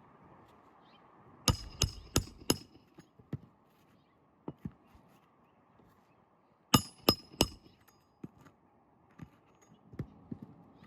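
Hammer driving nails into asphalt roof shingles: two runs of four quick, sharp blows with a metallic ring, a few seconds apart, then a few lighter taps.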